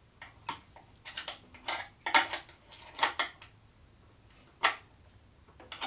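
Hand tools clinking on metal as a wrench is fitted to the 7/16 speedometer mounting bolts on a motorcycle: about ten short, irregular metallic clicks and clinks.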